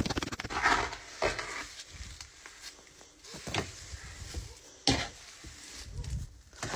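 Hand trowel stirring and scraping thick plaster mortar in a galvanized metal tub: irregular wet scrapes and soft thuds, with one sharp knock about five seconds in.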